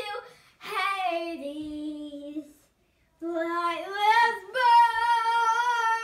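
Young girl singing long drawn-out notes without clear words: one slides down, then after a short pause another rises into a long, high held note.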